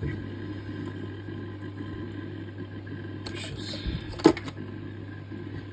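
Aquarium protein skimmer running. Its pump hums steadily while it draws in air and churns the water into foam. There is a brief rustle of handling and a sharp knock about four seconds in.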